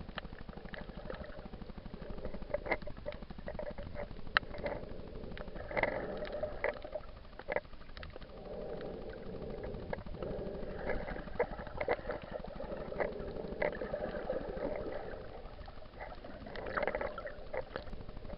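Muffled water sound picked up by an action camera in a waterproof housing while snorkeling: irregular bubbling and gurgling with many scattered sharp clicks.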